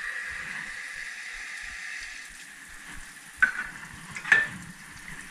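Kitchen tap water running into stainless steel measuring cups, a steady hiss that slowly fades, then two sharp metallic clinks of the measuring cups, about three and a half seconds in and again a second later, the second one ringing briefly.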